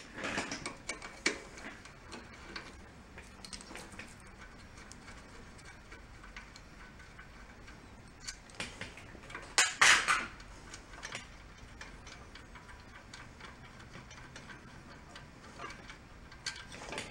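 Socket wrench clicking and small metal clinks while the carburetor is unbolted from a small single-cylinder engine, with a short louder run of clicking about ten seconds in.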